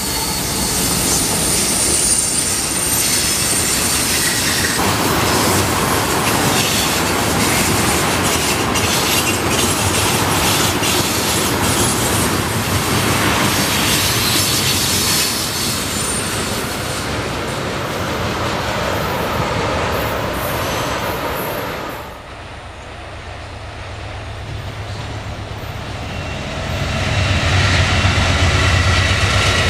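Freight train rolling past at track side: diesel locomotives, then a string of tank cars, with clattering wheels and high-pitched wheel squeal. About two thirds of the way through it cuts off suddenly to a quieter scene, and near the end an Amtrak passenger train's diesel locomotive grows louder as it approaches, with a low engine hum.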